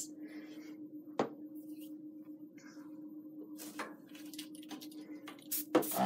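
A few faint clicks and taps as a small dropper bottle and an airbrush are handled and set down on a work table, over a steady low hum.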